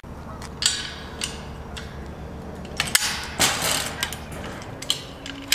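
Metal clicks and rattling of a shopping-trolley coin lock and its chain being worked by hand, with the wire trolley frames clattering: a string of sharp clicks, then a longer rattle about three and a half seconds in.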